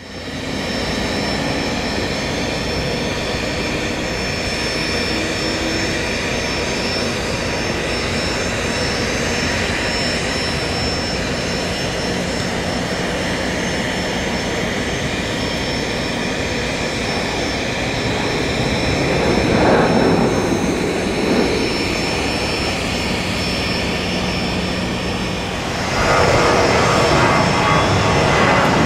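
Boeing 737-700 Business Jet's CFM56-7 turbofan engines on landing: a steady jet rumble with a thin high whine. About two-thirds of the way through the noise swells briefly, and a few seconds before the end it steps up louder and stays there.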